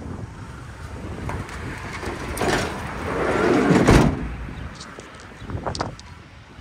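The sliding side door of a Peugeot Expert van is pushed along its runner and slams shut with one loud thud about four seconds in. A few lighter clicks follow.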